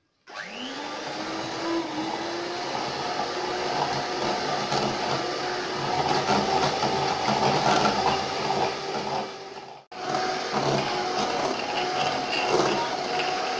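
Electric mixer whipping chantilly cream with cold milk: the motor spins up with a rising whine just after the start and then runs steadily. It cuts out for a moment about ten seconds in and starts again.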